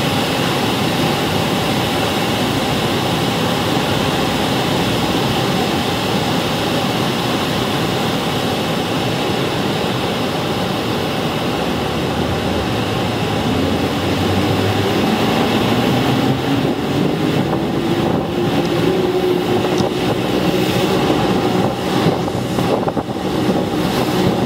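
Steady rush of a waterfall and whitewater rapids, with a boat's motor underneath that rises in pitch about halfway through and then holds as the boat gets under way. Wind buffets the microphone in the second half.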